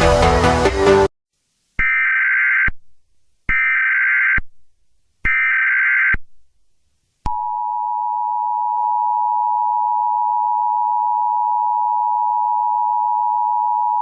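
Electronic music cuts off about a second in. It is followed by three short, harsh data bursts of an Emergency Alert System SAME header, each about a second long with short gaps between. About seven seconds in, the steady two-tone EAS attention signal starts and holds.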